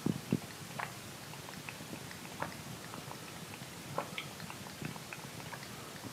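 A cat lapping water at a bathtub faucet spout: short, wet licking clicks at an uneven pace, about one or two a second.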